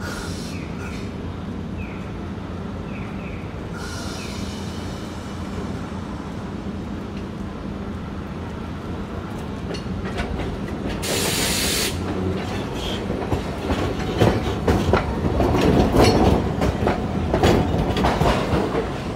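Iyotetsu Moha 2000 series tram running slowly past at close range: a steady low hum, a sharp burst of air hiss about 11 seconds in, then its wheels clacking over the rail joints and points, loudest as it goes by near the end.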